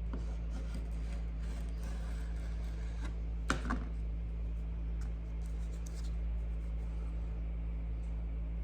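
Light scratching and tapping of hand work at a bench, with two sharp clicks close together about three and a half seconds in, over a steady low electrical hum.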